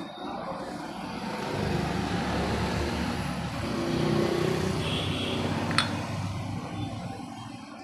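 A motor vehicle engine running, its sound swelling and then fading away. A single sharp click comes about six seconds in.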